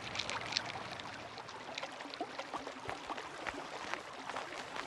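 A mountain stream running steadily, with scattered small clicks and wet crunches over it.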